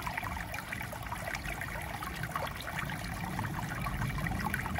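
Small shallow woodland stream burbling and trickling over stones and leaf litter: a steady, dense patter of little splashes with a low rumble underneath.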